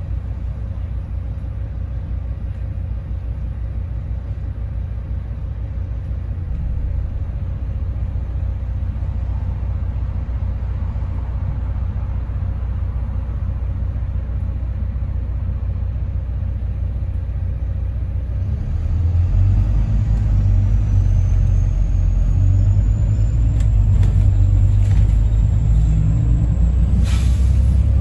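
Bus engine idling with a steady low rumble, heard from inside the bus while it waits at a red light. About two-thirds of the way through the engine note gets louder as the bus pulls away, with a thin whine rising slowly in pitch. A brief sharp noise comes near the end.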